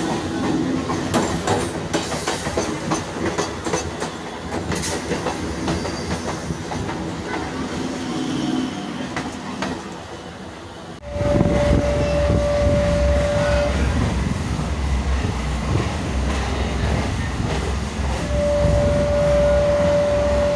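Local passenger train running, its wheels clattering over the rail joints. About halfway there is an abrupt cut to a louder, deeper rumble, and the train horn sounds twice in long, steady single-tone blasts.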